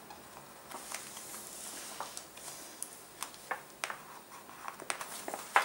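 Irregular small clicks and scratches of an embossing stylus pressing and drawing lines into a thin sheet of gold metal embossing foil.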